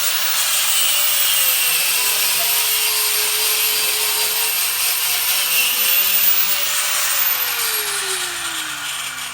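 A power tool running steadily at a construction job, a loud hiss with a motor tone that wavers and then drops in pitch over the last couple of seconds.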